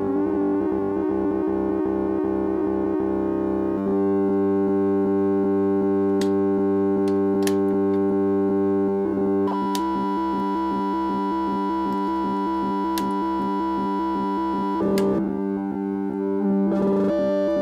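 Lorre Mill Double Knot v3 synthesizer's two oscillators droning a sustained tone, their sync driven through the VCA and slew so the timbre buzzes and shifts. The tone changes abruptly several times, about 4, 9½ and 15 seconds in, with a few sharp clicks along the way.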